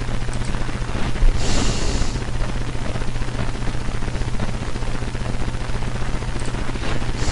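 Steady electrical hum and hiss, with a brief breathy rush about one and a half seconds in.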